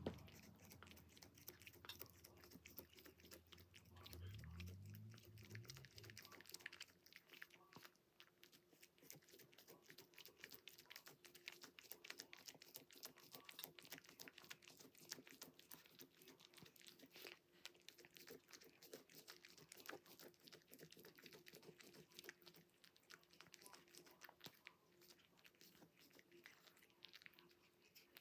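Domestic cat eating tuna off a plastic container lid: a continuous run of many quick, faint chewing and licking clicks and smacks.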